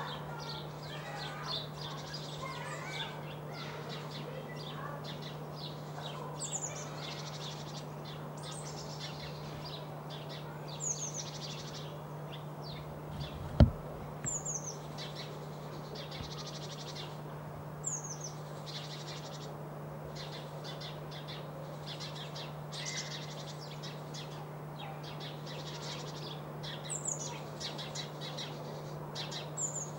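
Songbirds calling and chirping, with short high notes that sweep downward every couple of seconds over a busier twittering. A steady low hum runs underneath, and a single sharp thump comes about halfway through.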